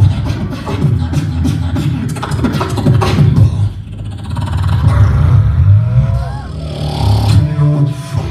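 Beatboxing through a microphone and PA system: dense deep bass with sharp percussive clicks all through, and a short gliding pitched vocal line about six seconds in.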